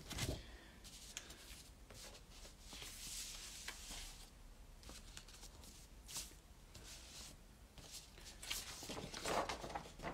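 Faint rustling, light taps and clicks of cardboard LP jackets and sleeves being handled and sorted, with a somewhat louder rustle near the end.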